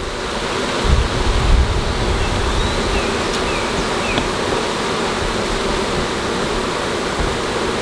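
A swarm of honeybees buzzing at close range: a dense, steady hum. A low rumble hits the microphone about a second in.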